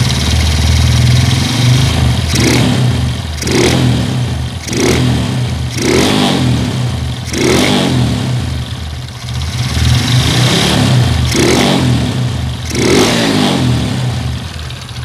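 Honda Supra Fit's small single-cylinder four-stroke motorcycle engine, running on a Supra X 125 carburettor. It idles and is blipped with short revs about eight times, a second or so apart.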